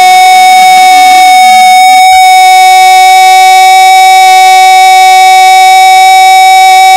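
A Brazilian football narrator's long, drawn-out goal shout ('Gooool'), one very loud held note at a steady pitch.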